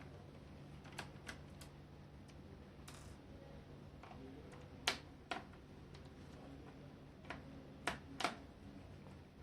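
Scattered light clicks and taps of a screwdriver and small screws against a laptop's plastic case as its bottom screws are taken out, about nine in all, the sharpest about five seconds in, over a steady low hum.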